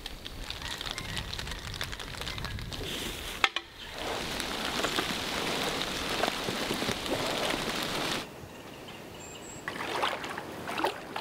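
Boots wading through shallow floodwater, the water sloshing and splashing, with a sharp click about a third of the way in. The splashing strides come near the end.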